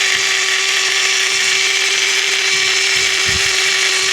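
Washing machine's electric drain pump running with a loud, steady buzzing whine. It is the strange noise put down to a problem with the pump's impeller. A low thump comes near the end.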